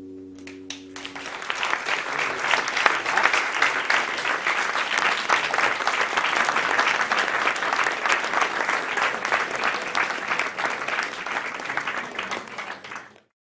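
An audience clapping, swelling up about a second in as the last acoustic guitar chord dies away, then cutting off suddenly near the end.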